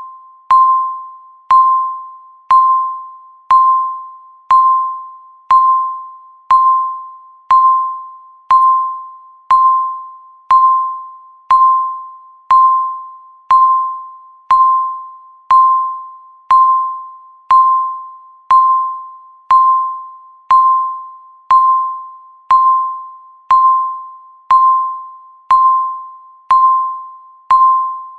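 Countdown timer beeps, one each second: a single mid-pitched electronic tone that starts sharply and fades away before the next, marking each second left.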